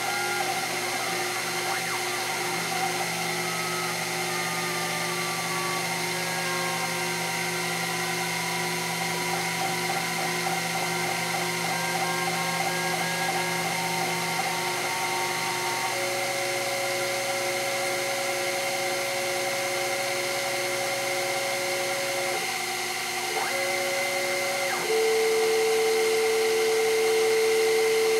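Sherline CNC mill cutting Delrin with an end mill while its fourth-axis rotary table turns: a steady spindle whine with stepper-motor tones that glide in pitch over the first several seconds, then hold steady. A louder steady tone sets in about 25 seconds in.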